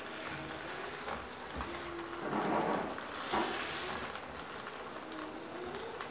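Chicken pieces sizzling in oil in a non-stick frying pan, frying with ginger-garlic paste, as they are stirred and turned with a slotted spatula. The sizzle surges louder about two and a half seconds in and again briefly about a second later.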